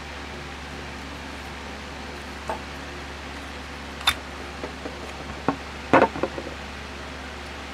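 A few sharp clicks and knocks of small parts being handled during brake-caliper reassembly, the loudest cluster about six seconds in, over a steady low hum and hiss.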